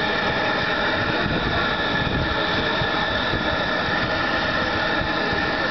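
Propane torch burning steadily, heating the hot bulb of a Vierzon tractor's hot-bulb engine before it can be started.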